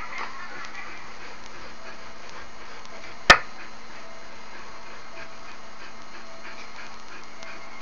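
A dog panting, with one sharp click about three seconds in.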